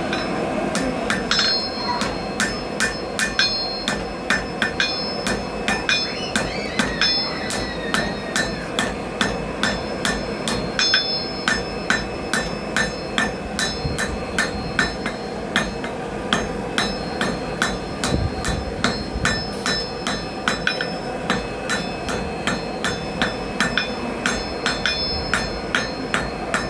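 Blacksmith's hammer striking hot iron on the anvil in a steady run of blows, about three a second with a few short breaks. Each strike rings with a bright metallic tone, as the iron is drawn out into a shawl pin.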